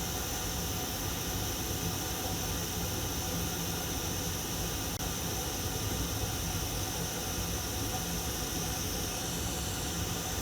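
Steady hiss of a hot air rework station blowing hot air on a circuit board, reflowing the solder under a chip.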